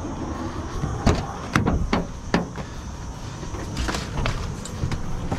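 Sharp clunks and knocks from handling a Volvo FH truck's cab door: four in quick succession over about a second and a half, then two fainter ones, over a low steady rumble.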